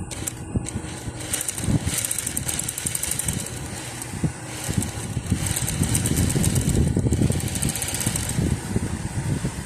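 Post-bed industrial sewing machine running: a motor hum with a rapid, even clatter from the needle mechanism, easing off briefly in the middle before picking up again.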